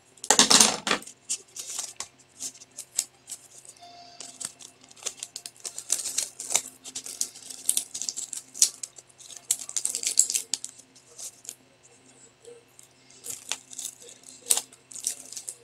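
Plastic packaging and packing tape crinkling and crackling in the hands as the tape is peeled off, in irregular clicks with the loudest crackle at the very start.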